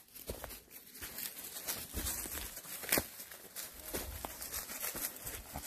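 Footsteps of a person walking through dry leaf litter and twigs on a forest floor, in irregular steps with sharp crackles.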